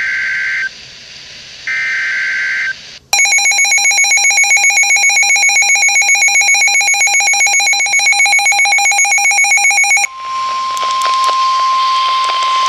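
Emergency Alert System tones. First come two roughly one-second screeching data bursts of the SAME header. Then about seven seconds of the buzzy, fluttering two-tone EAS attention signal. About ten seconds in this switches to the steady single-pitch 1050 Hz NOAA Weather Radio alert tone.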